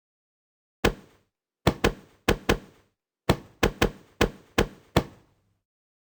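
A series of about eleven sharp knocks or taps in an uneven rhythm, each dying away quickly, stopping about a second before the end.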